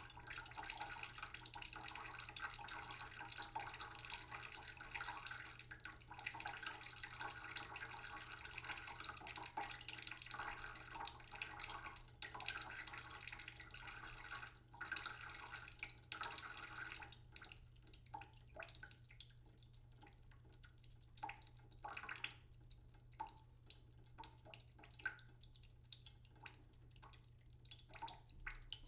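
Water running from a tap into a sink. A little past the middle it thins out to scattered drips and small trickles.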